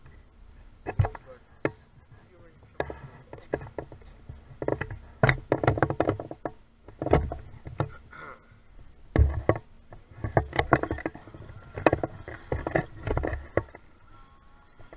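Irregular knocks, thumps and rustling picked up by a camera's built-in microphone: handling noise, with no clear voice or motor sound.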